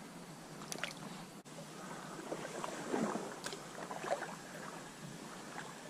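Water splashing and sloshing in an irregular way, with a few sharp clicks about a second in and again midway.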